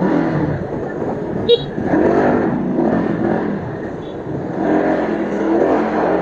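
Small motorcycle or scooter engine running and revving up and down as it rides slowly along a street, with a short high beep about a second and a half in.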